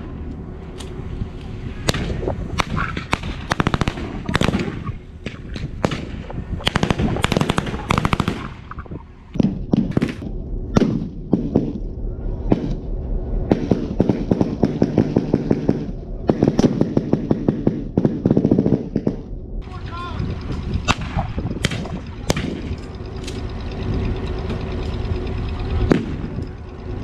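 Blank-firing gunfire in a WWII reenactment battle: scattered rifle shots and bursts of machine-gun fire, with one even, rapid burst of about six shots a second about halfway through. A steady diesel locomotive drone runs underneath.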